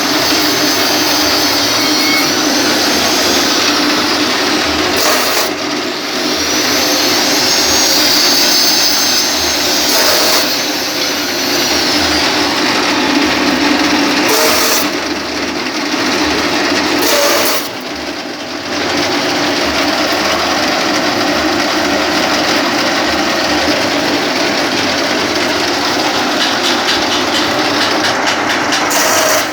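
Satay-skewer making machine running steadily, its motor whirring as bamboo is cut through it, with a few brief dips in the noise.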